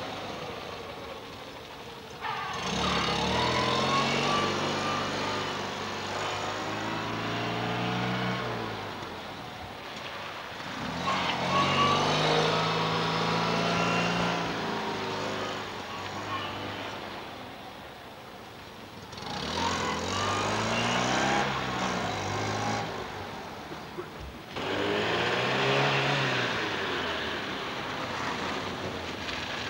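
Small Fiat rally cars' engines (a Fiat 126p, then a Fiat 125p) revving hard and easing off as they are driven through a cone slalom on tarmac. There are four loud surges of rising and falling revs.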